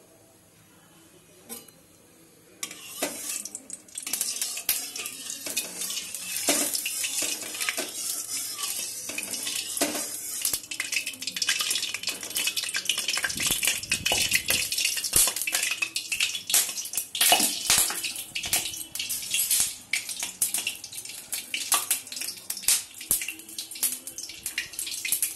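Hot cooking oil crackling and spitting in an aluminium kadai, with a metal spatula knocking and scraping against the pan. It starts suddenly a couple of seconds in and goes on as a dense crackle full of sharp clicks.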